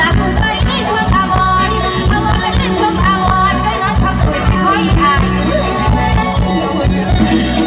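Live mor lam band music through a concert PA: a steady drum beat under a woman singing the melody.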